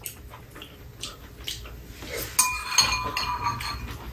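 Metal spoons clinking and scraping against bowls during a meal, with small clicks throughout. About two and a half seconds in, one clink rings on for about a second.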